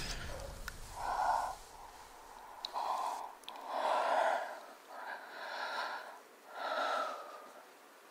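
A woman's breathy sighs or gasps, five of them about a second apart, with a couple of faint clicks from lips or the mug near the middle.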